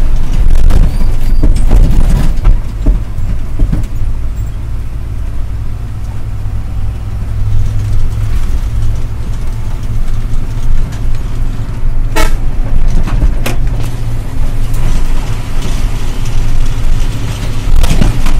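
Ashok Leyland 1613 truck's diesel engine droning steadily, heard from inside the cab while driving, with a short horn toot about twelve seconds in.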